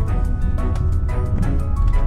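Background music with a steady beat, over the low rumble of a car driving up a road.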